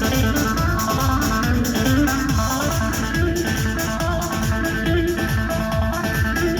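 Instrumental dance music from a live wedding band, without vocals: a plucked-string melody over a steady, driving beat.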